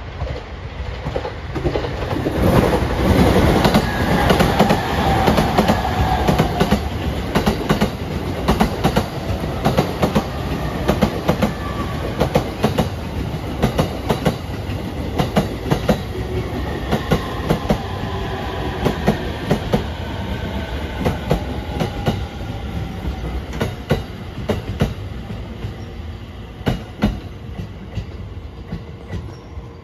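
Electric commuter train rolling slowly over rail joints into a station: a rapid, uneven clickety-clack of wheels striking the joints over a steady rumble, loudest a few seconds in. A faint whine under it falls in pitch as the train slows.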